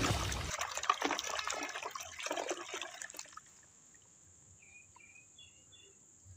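A hand sloshing and splashing in a tub of soapy water, a flurry of splashes that dies away after about three seconds, leaving near silence.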